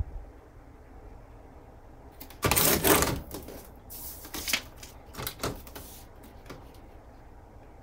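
Printed sublimation transfer paper being handled: a loud rustle and slide of paper about two and a half seconds in, then a few shorter rustles.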